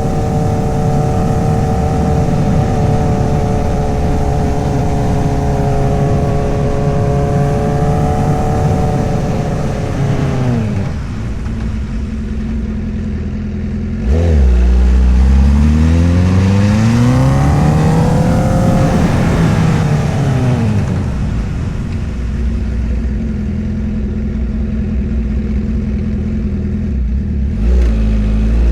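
2008 Honda CBR1000RR Fireblade's 999cc inline-four engine and exhaust on the move. It holds a steady note at first, drops in pitch as the throttle comes off about ten seconds in, then gets louder suddenly and the revs climb and fall back over several seconds before it settles into steady running.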